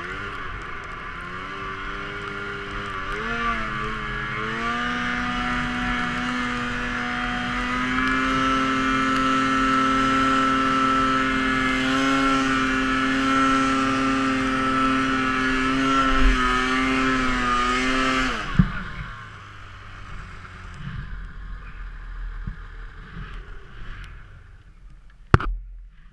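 Snowmobile engine held at high revs, its pitch climbing in steps over the first several seconds and then holding, before the revs drop away sharply about eighteen seconds in. After that it runs much more quietly, with a sharp knock near the end.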